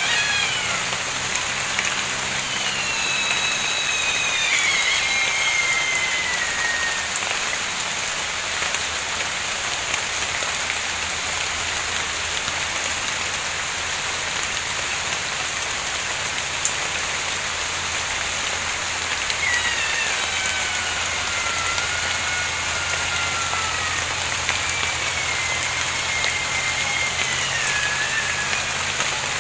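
Steady rain falling, with an unseen animal's drawn-out, high-pitched screaming cry that slides slowly downward in pitch, heard a few seconds in and again in a series about twenty seconds in; it sounds like a cat but is not one.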